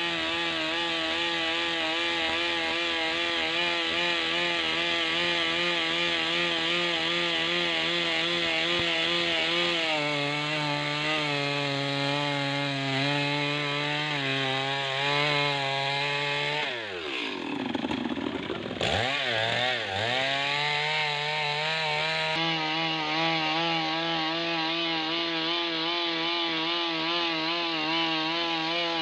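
Stihl MS 382 two-stroke chainsaw running at full throttle while ripping a large log lengthwise into planks, its pitch wavering under the load of the cut. About 17 seconds in the revs dip sharply and climb back, then the saw runs on steadily.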